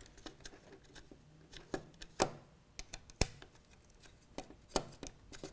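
Scattered small metallic clicks and taps of a hex key working the two bolts out of a Dillon low primer sensor housing, with the sharpest clicks a little after two and three seconds in.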